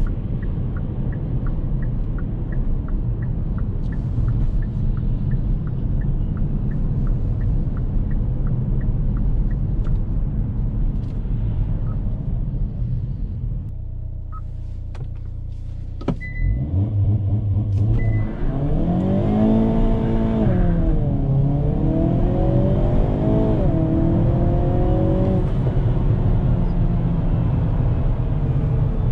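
Hyundai Kona N's 2.0-litre turbocharged four-cylinder heard from inside the car: a steady rumbling run with a light tick about twice a second, a brief quieter spell, then the engine note climbs, drops back and climbs again through upshifts of the eight-speed dual-clutch as the car accelerates, settling to a steady drone near the end.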